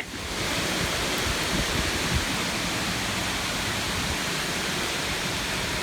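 Heavy rain coming down in a storm: a steady, even rushing noise.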